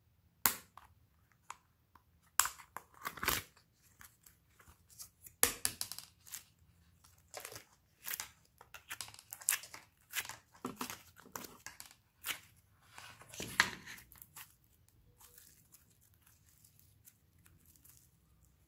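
Plastic toy slime containers being handled and opened, with slime peeled out of them: irregular sharp clicks, crackles and tearing sounds, which die down about fourteen seconds in.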